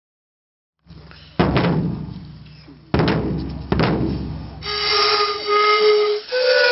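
Music: two deep drum strikes that ring out slowly over a low drone, then a flute-like melody begins about four and a half seconds in.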